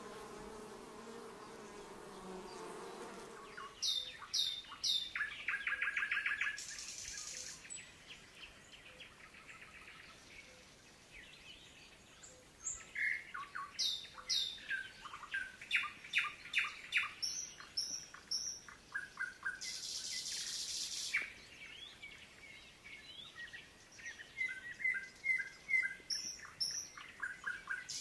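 A honeybee buzzing steadily for the first few seconds, stopping about four seconds in. Then songbirds singing, a mix of repeated chirps, short trills and falling whistles, with two longer buzzy notes.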